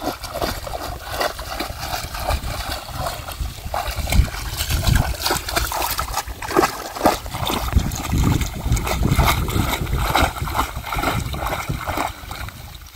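A hand scoop net being pushed and dragged through shallow muddy water and weeds, with repeated irregular splashing, sloshing and trickling water.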